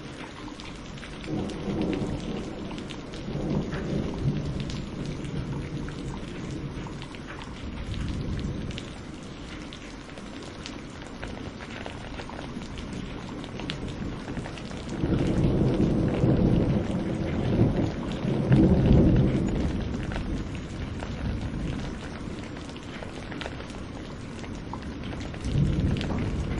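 Steady rain with rolling thunder. Low rumbles swell a couple of seconds in, a longer, louder roll comes in the middle, and another begins near the end.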